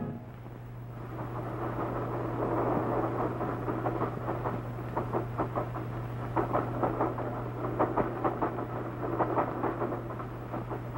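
Freight train cars rolling past, their wheels clattering rhythmically over rail joints, strongest in the middle and fading toward the end, over a steady low hum.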